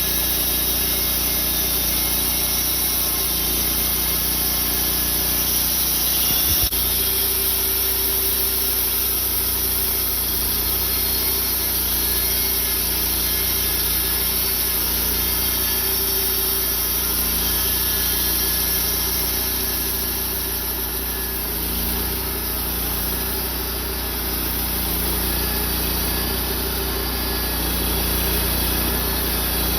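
Engine-driven sawmill running steadily as its blade cuts through a burled cherry log, with one brief knock about seven seconds in.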